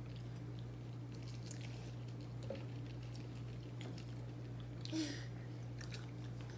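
A person chewing food, with small mouth clicks throughout and one brief, louder smack about five seconds in, over a steady low hum.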